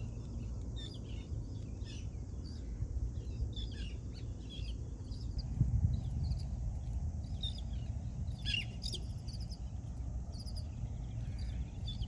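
Birds chirping and calling, many short chirps, with one louder descending call about eight and a half seconds in, over a steady low rumble.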